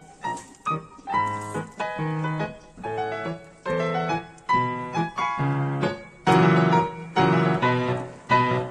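Background music: a piano playing a melody of short notes and chords, louder about six seconds in.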